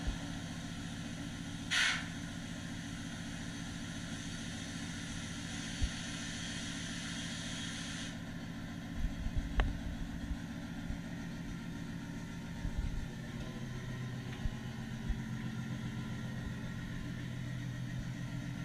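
Recorded submarine diesel engine running steadily, played back over the engine room's loudspeakers as a low, even hum. A short burst of hiss comes about two seconds in, and a few low knocks follow later.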